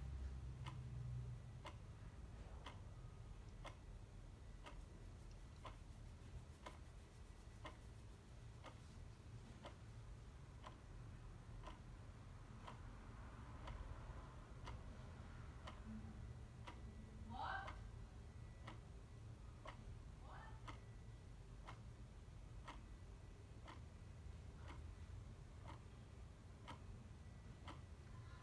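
Clock ticking steadily and softly, about one tick a second, over a low steady hum.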